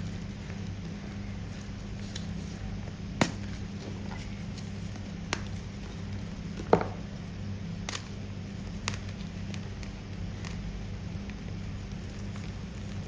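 Firm pasted gumchalk being bitten and crunched close to the microphone: a handful of sharp crunches a second or two apart, the loudest about seven seconds in, over a steady low hum.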